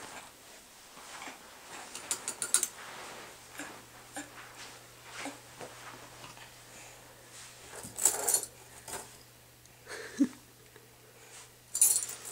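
A bunch of keys jingling and clinking in a few short bursts: about two seconds in, around eight seconds, and again near the end.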